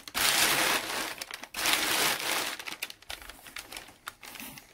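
Crumpled brown kraft packing paper rustling and crinkling as it is handled inside a cardboard shipping box. Two loud bouts of crackling come in the first two and a half seconds, then fainter scattered crackles that die away.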